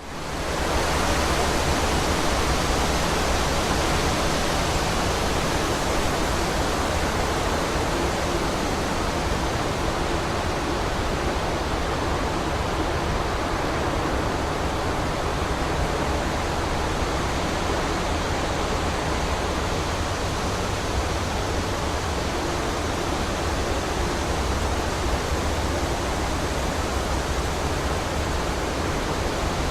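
Wind blowing through a forest: a steady, even rush of noise in the trees, fading in over about the first second.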